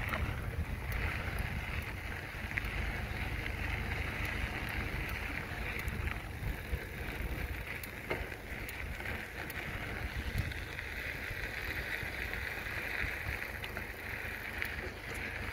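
Wind buffeting the microphone of a bicycle being ridden along a trail: a constant low rumble, with a steady hiss from the tyres rolling on the path that swells and fades.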